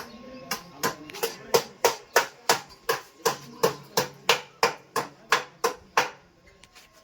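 A hammer striking in a steady run of about eighteen blows, some three a second, stopping about six seconds in: tapping the steering-head bearing cups (ball races) of a Hero Splendor motorcycle into place.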